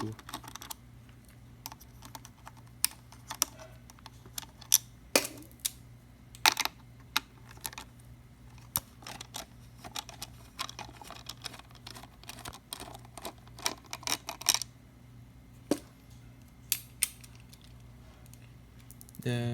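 Irregular small clicks and taps of a magnetic screwdriver and metal grinder parts being handled while a coffee grinder is taken apart, over a steady low hum.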